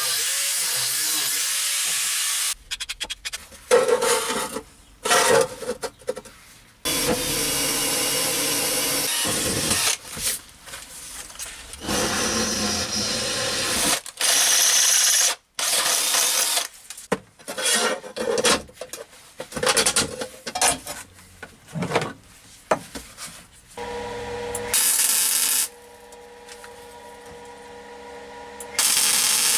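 Bursts of metalworking noise: an angle grinder grinding and rasping on steel in a string of short, abruptly cut clips, with a steadier humming run near the end.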